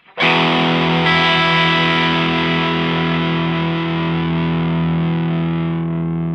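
Gibson Les Paul with humbuckers played through a Visual Sound Route 808 overdrive pedal into a Fender Blues Deluxe amp: a distorted chord is struck just after the start and left to ring, slowly fading.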